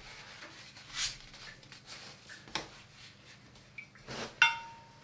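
Watercolour brushes and a hard dish or jar being handled at the painting desk: a few soft scuffs and a small click, then near the end a sharp clink that rings briefly.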